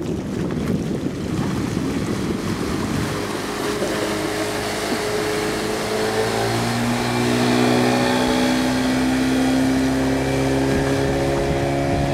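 Yamaha 40 two-stroke outboard motor on a motorboat running at speed as the boat passes and heads away. The motor's tone comes through clearly about three seconds in, its pitch sliding as it goes by, and it is loudest a little past the middle. Wind buffets the microphone at the start.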